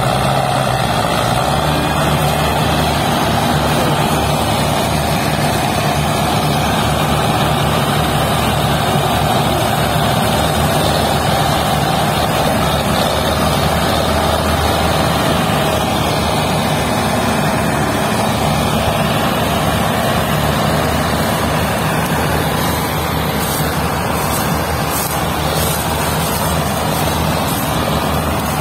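Belarus tractors' diesel engines running hard together, a loud steady drone. The tractors are hitched to one another and pulling under heavy load.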